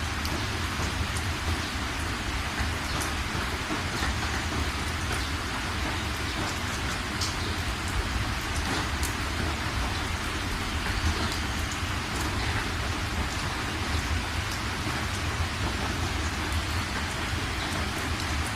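Steady rain falling: an even hiss with scattered sharp drips and a low rumble underneath.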